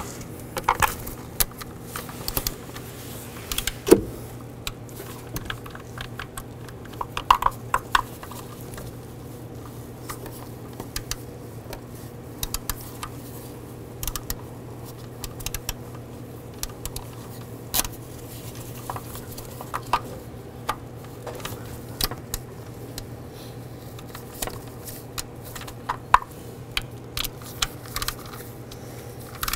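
Ratcheting torque wrench snugging bolts to 5 foot-pounds in a first tightening pass: scattered metallic ratchet clicks and short bursts of clicking at irregular intervals, the loudest about four seconds in.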